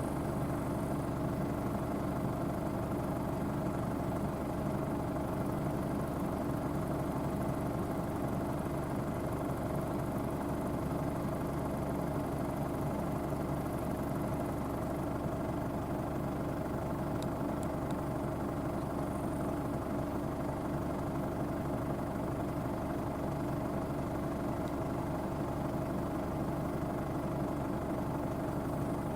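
Case IH Axial Flow 9240 combine running steadily while harvesting, its diesel engine and threshing machinery making a constant, even drone.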